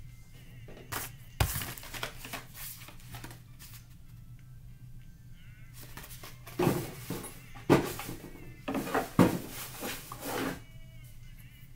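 Crunching and chewing of dry cornstarch chunks: a sharp crunch about a second and a half in, then a run of crunches from about six and a half to ten and a half seconds, over faint background music.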